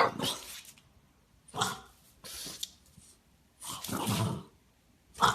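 French bulldog barking: a string of about five separate barks with short silent gaps between them, the one about four seconds in longer and drawn out.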